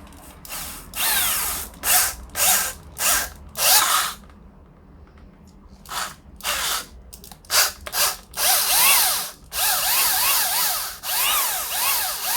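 Drill spinning a flap sanding wheel inside a galvanized steel pipe connector, triggered in a dozen or so short bursts, its whine rising and falling with each squeeze. The abrasive is grinding the connector's bore out by just a hair so the pipe will fit.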